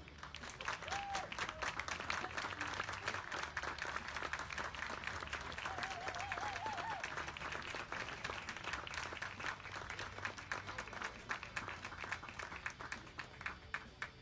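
Ringside crowd applauding steadily as Newfoundlands are gaited around the show ring, with a cheer or two rising over the clapping; the applause starts abruptly and thins out near the end.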